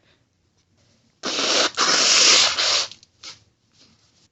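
A person blowing their nose hard, in two long blows back to back starting about a second in, then a short sniff, during an allergy sneezing fit.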